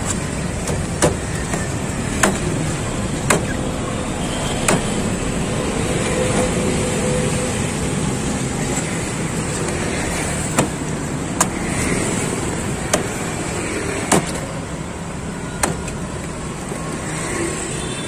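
Machete chopping a young green coconut on a wooden block: sharp single chops, four in the first five seconds and five more spread from about ten seconds in. Steady street traffic noise runs underneath.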